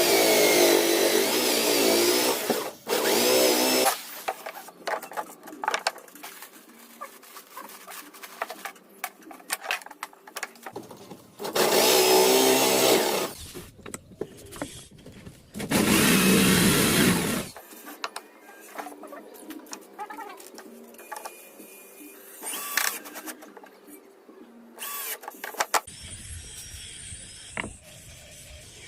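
An electric power tool runs in four short bursts of one to two seconds, its motor pitch sagging and rising as it works. Quieter clicks and knocks of handling come between the bursts.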